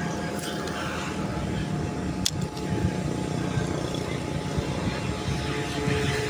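A steady low mechanical hum, like a distant engine, with two short sharp clicks about half a second and two seconds in.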